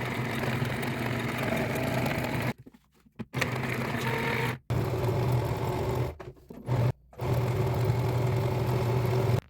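Sewing machine running steadily, stopping for a moment three times and starting up again.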